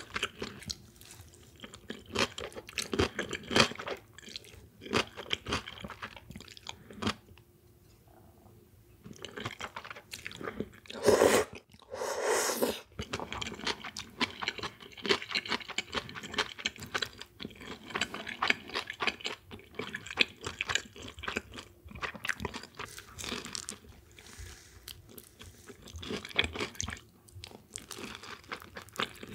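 Close-miked chewing and crunching of food, a steady run of small crackles and clicks, with two louder, longer sounds just after the middle.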